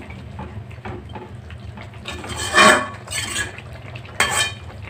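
A metal spoon stirring wet vermicelli pulao in a metal pot, scraping and clinking against the pot a few times in the second half, the loudest just past two and a half seconds in.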